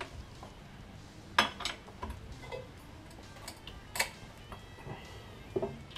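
Metal clinks and taps of a wrench and socket against the rear suspension hardware as a 19 mm sway bar link nut is worked on. The clinks are scattered and separate, the loudest about a second and a half in and again about four seconds in.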